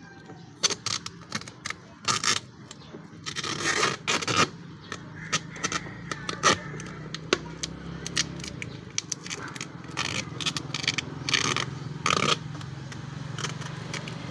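Hands working on the mass airflow sensor and intake parts. There is irregular scraping, crackling and sharp clicks of plastic and rubber pieces being handled and fitted together.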